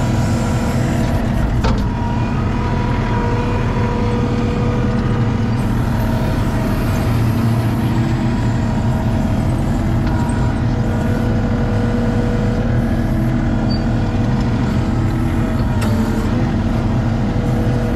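Compact track loader's diesel engine running steadily under load, heard from the operator's seat, as the bucket dumps and spreads sand.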